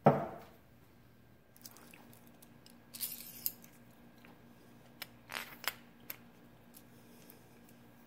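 A single knock, then a few light clicks and clinks as a drilled cherry burl pen blank and a metal rod through it are handled, over a faint steady hum.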